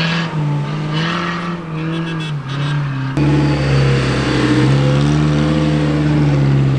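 4x4 SUV engine revving hard under load in deep sand, its pitch rising and falling. The sound changes abruptly about three seconds in, with a deeper engine rumble joining.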